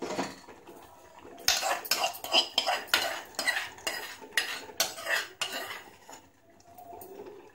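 Metal spoon stirring thick rice-and-milk pudding in an aluminium pot, clinking and scraping against the pot's sides. It is a run of quick knocks that starts about a second and a half in and stops about two seconds before the end.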